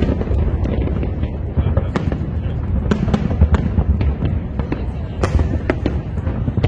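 Aerial fireworks shells bursting: a string of sharp bangs, about two a second, over a steady low rumble.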